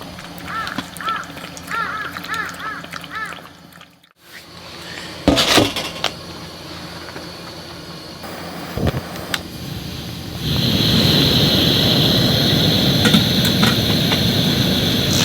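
A bird calling in a quick run of repeated arching notes. After a short break comes a single loud knock, and from about ten seconds in a steady rumble sets in with a high, steady squeal on top.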